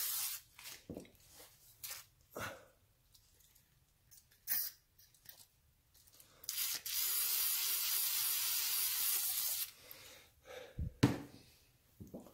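WD-40 aerosol can spraying through its straw: a hiss that stops just after the start, then a longer hiss of about three seconds in the middle, with small clicks and taps between. A sharp knock near the end.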